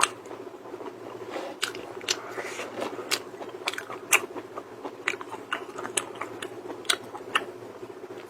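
Close-miked crunching as a person bites and chews crunchy food: irregular sharp cracks, about one or two a second, over a steady low hum.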